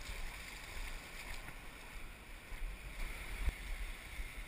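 Wind buffeting the camera microphone over the wash of shallow surf on the beach, with a single knock about three and a half seconds in.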